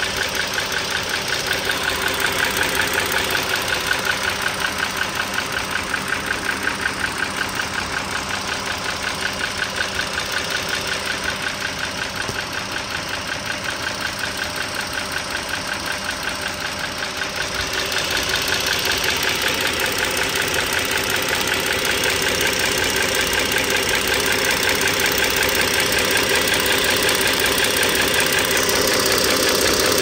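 Dodge Journey V6 engine idling, with a fast, steady clicking tap from the top of the engine. The owner is pretty sure the tap comes from the rocker arm assemblies, whose rockers have shifted off their oil holes and run short of oil.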